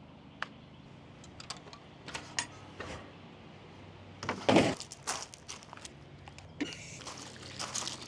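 Scattered light knocks and clicks of footsteps and handling on wooden stairs and decking, with one louder thud about four and a half seconds in, over a faint steady low hum.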